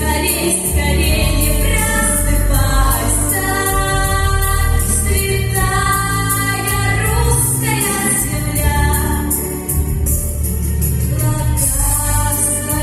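A teenage vocal group singing a song together, holding long notes over an instrumental backing track with a bass line and a steady beat.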